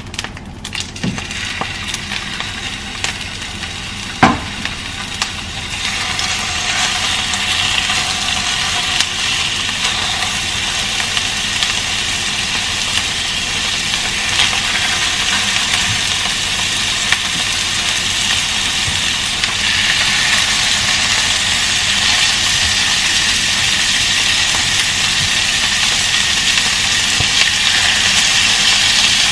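Lamb chops sizzling and crackling as they are laid into hot olive oil in a nonstick frying pan. The sizzle swells over the first several seconds as more chops go in and then holds steady and loud, with a sharp clink about four seconds in.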